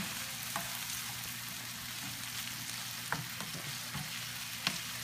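Diced eggplant, sweet peppers and onion sizzling in olive oil in a nonstick frying pan, stirred with a plastic spoon that knocks against the pan a few times.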